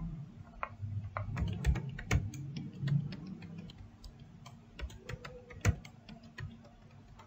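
Computer keyboard being typed on: quick, irregular key clicks, thinning out after the first few seconds.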